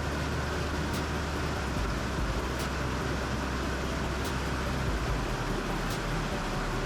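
Heavy rain hissing steadily, with the low drone of an auto-rickshaw engine underneath and a faint click about every second and a half.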